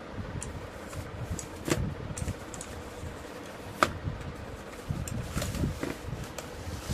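Handling noise as a mechanical keyboard is unpacked: rubbing and rustling of packaging with scattered light knocks and clicks, the sharpest about four seconds in.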